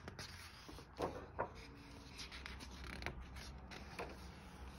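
Thick pages of a hardcover picture book being turned by hand: faint paper rustling, with a couple of soft taps about a second in.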